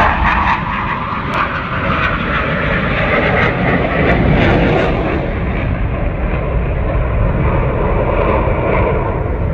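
Loud, steady aircraft engine noise with a deep rumble and no clear rise or fall in pitch.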